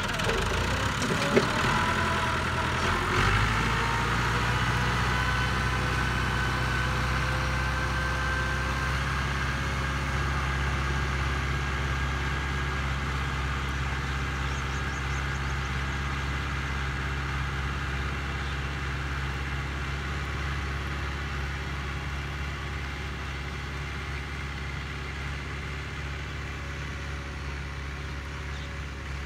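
Diesel farm tractor engine pulling a seed planter, with a sharp knock about a second in. About three seconds in the engine note grows heavier as the tractor pulls off, then runs steadily and slowly fades as it moves away.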